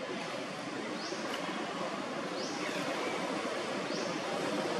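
Steady outdoor background noise, with a short high chirp rising in pitch repeating about every second and a half.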